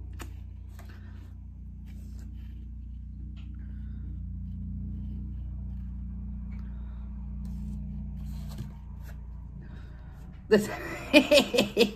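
A steady low hum with a few faint clicks of eating. A woman's voice breaks in loudly about ten and a half seconds in.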